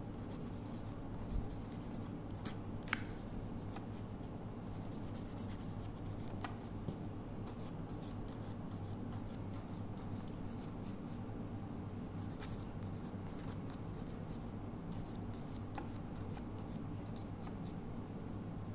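Hand nail file rasping across fingernails in runs of quick back-and-forth strokes with short pauses, shaping polygel nails.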